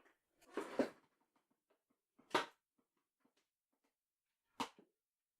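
Three brief knocks and clatters of objects being handled and set down, about half a second in, about two and a half seconds in and near the end, with silence between them.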